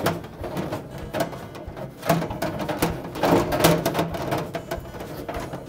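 Plastic ice bin and auger assembly being slid into a refrigerator freezer compartment: a run of irregular scraping, knocks and clicks as it is pushed home, busiest in the middle.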